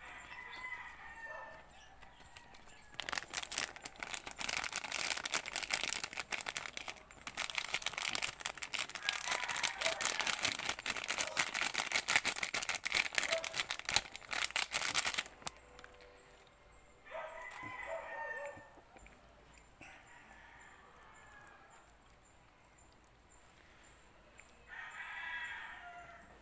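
Dense crackling starts a few seconds in and stops abruptly a little past the middle; it is the loudest sound. After it, a rooster crows twice, the second crow near the end.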